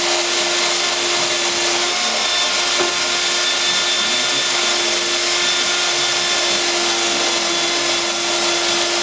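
Cordless Milwaukee drill spinning a wire wheel against car body sheet metal, a steady motor whine under the scratchy rasp of the wire bristles, as it strips old seam sealer and putty filler down to bare steel.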